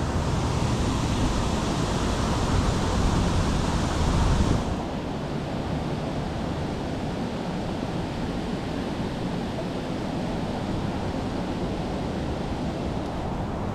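Wind buffeting the microphone as a dense, low rumbling hiss, which drops abruptly about four and a half seconds in to a quieter, duller steady rush.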